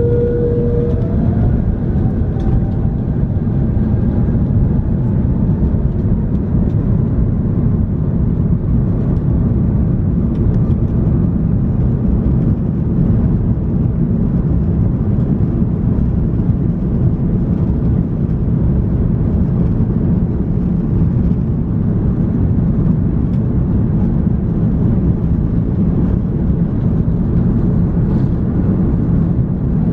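Airbus A330-300 jet engines and airflow heard from inside the passenger cabin: a loud, steady deep rumble. In the first few seconds, high whining tones rise slowly and fade out.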